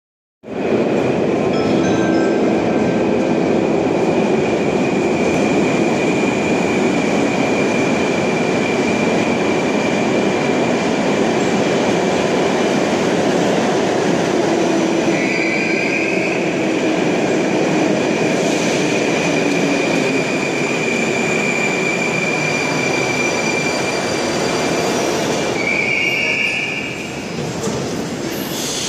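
Moscow metro 81-765 "Moskva" train pulling into the platform and slowing to a stop: a loud steady rumble with a high wheel squeal throughout and a slowly falling motor whine. It grows quieter near the end as the train halts.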